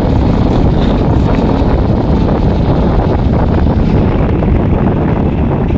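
Heavy wind buffeting the microphone while riding at speed, a loud steady rumble.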